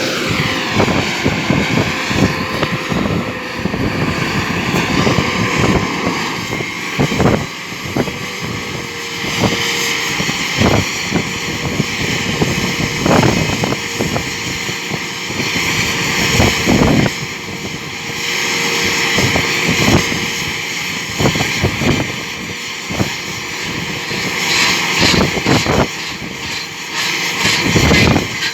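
Rock drilling rig running: a steady engine drone broken by frequent, irregular sharp knocks.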